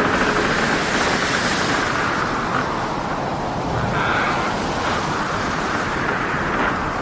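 Storm at sea: a dense, steady rush of wind and breaking waves, swelling briefly about a second in.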